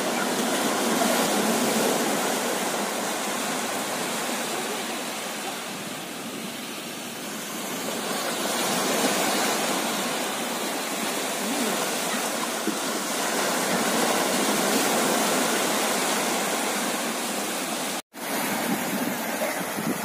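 Small sea waves breaking and surf washing over the shallows, a steady rush that swells and eases every few seconds. The sound cuts out completely for an instant near the end.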